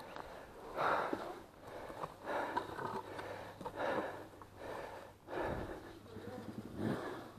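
A rider's heavy breathing close to the microphone, hard noisy breaths about once a second, as he struggles with the dirt bike on a steep climb.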